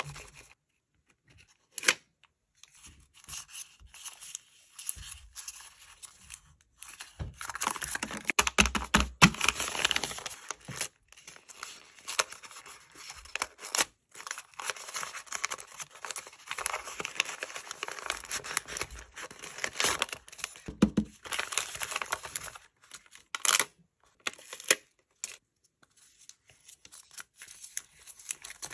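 Paper rustling, crinkling and tearing as handmade paper blind-bag packets are unfolded and opened, in uneven spells with short quiet gaps and a few sharp clicks and taps.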